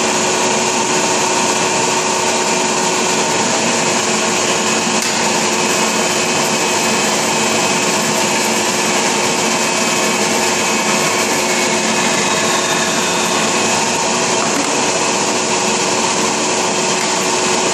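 W.F. Wells W-9 dual-column horizontal band saw running, its blade drive giving a steady mechanical whine over a constant hiss.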